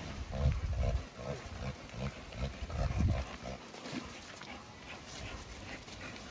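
An animal making a quick series of short, repeated calls during the first few seconds, then fainter sounds.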